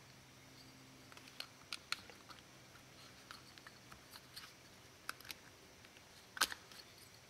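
Faint, irregular little clicks and ticks of a thin piston ring being spread by hand and worked into its groove on a two-stroke piston, with one sharper click near the end.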